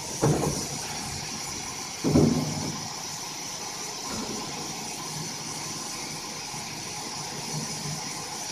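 ARGO A1 CNC vertical machining center running: a steady high hiss with short louder bursts about a quarter second in and about two seconds in.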